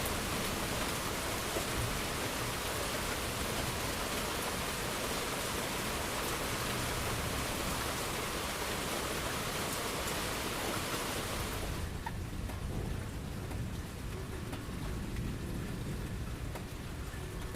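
Steady heavy rain. About twelve seconds in, the bright hiss suddenly thins, leaving softer rain over a low rumble of thunder.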